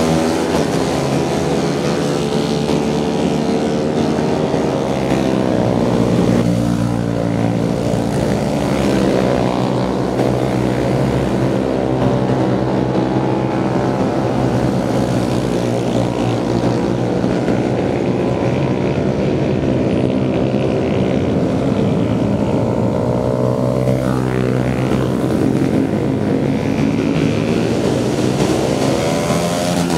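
Several motorcycle engines revving and passing, a loud continuous drone whose pitch rises and falls again and again as the bikes accelerate and ease off.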